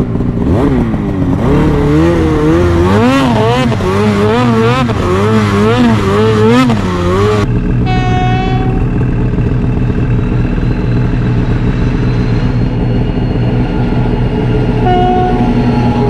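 Mountain snowmobile engine running, its pitch swinging quickly up and down with the throttle over rough snow. After an abrupt change about seven seconds in, a steady engine hum continues. An approaching locomotive's horn sounds for about a second, then gives a short second blast near the end.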